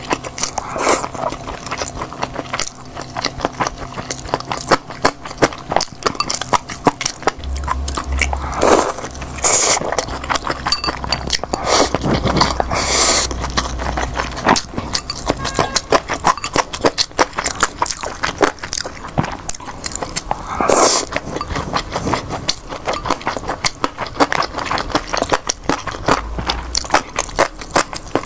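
Close-miked eating: chewing and biting food in a dense run of wet clicks and crisp crunches, with a few louder crunches or utensil scrapes.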